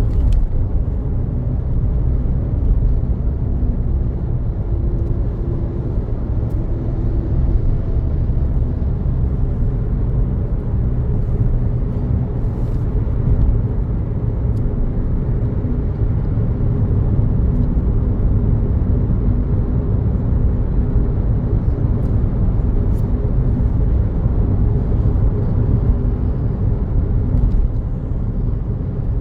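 Steady low rumble of engine and tyre noise heard inside a car's cabin while driving at speed on a main road.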